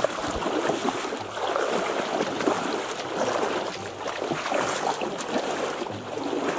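Water splashing and churning in a steady, grainy rush.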